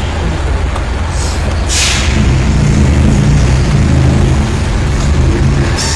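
Heavy vehicle engine running low and steady, with a short air-brake hiss about two seconds in.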